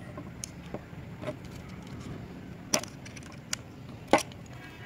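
A few sharp, separate metal clicks and taps from a small tool and hands working on a TT-pattern 30-bore pistol's frame during reassembly, the loudest near three and four seconds in.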